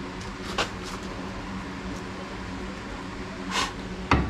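Scattered light metallic clicks while car parts and tools are handled, then one heavy clunk near the end, all over a steady low hum.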